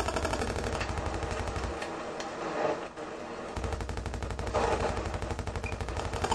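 Electronic noise music: a fast, rattling stutter of pulses over a deep low throb. The bass drops out for about two seconds in the middle, then comes back.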